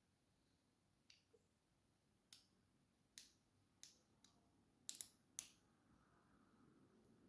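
Near silence broken by about eight short, sharp clicks at irregular spacing; the loudest is a quick double click about five seconds in.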